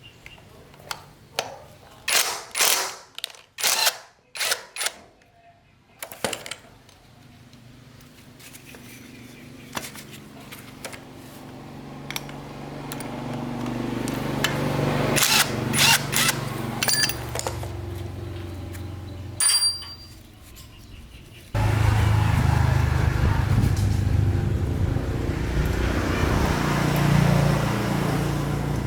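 Workshop repair sounds: a quick series of sharp metal knocks and clicks, then a power tool running, building up and holding steady. After a brief drop it starts again abruptly, louder, and runs steadily.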